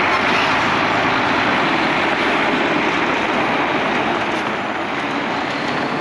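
Harvest machinery running steadily: a dense, even rushing noise with no clear engine note, which holds level throughout.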